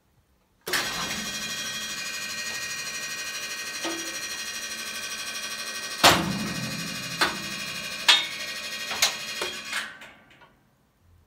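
Kallesøe TP2200 rotary clamp carrier turning under power: a steady mechanical running sound starts under a second in, with a string of sharp knocks in its second half, and winds down about ten seconds in.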